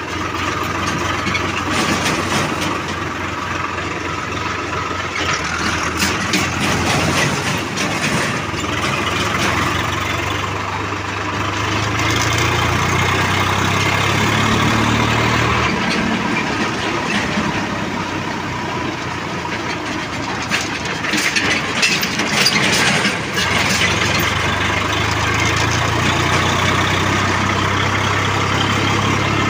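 Tractor diesel engine running as the tractor drives along a road. The engine note rises about a third of the way in, drops back about halfway, and rises again near the end, with a few seconds of rattling knocks a little past the middle.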